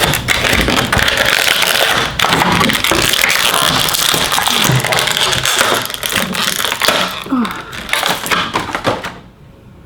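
Plastic packaging crinkling and crackling as it is handled and opened to free a small toy figure, cutting off about nine seconds in.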